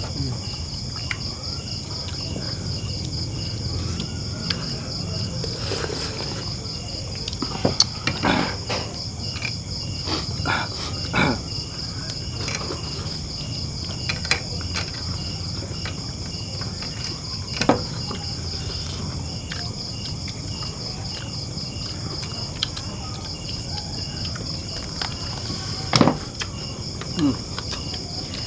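Steady chorus of night insects: a shrill pulsing trill with a second, evenly repeating chirp beneath it, broken now and then by a few sharp knocks, the loudest near the end.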